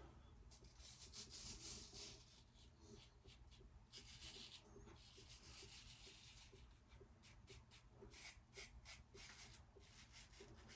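Faint scratchy strokes of a 3D-printed open comb injector razor cutting several days' stubble, one short stroke after another.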